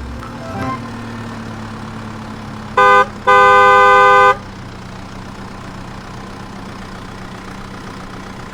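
Cartoon vehicle horn sound effect: a short honk, then a longer one lasting about a second, over a steady low engine hum.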